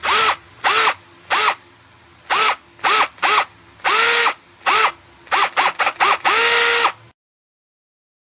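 Black+Decker 20V MAX cordless drill run unloaded in about a dozen short trigger pulls, its motor whine rising as it spins up and falling as it coasts down each time. There is a quick flurry of pulls near the end, then one longer run of about a second before it stops.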